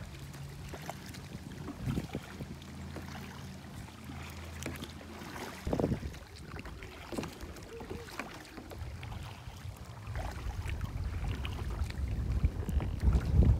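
Kayak paddling on a creek: paddle blades splashing and dripping water in scattered small clicks, with one sharp louder splash or knock about halfway through. A low steady hum runs through the first half, and wind rumble on the microphone builds near the end.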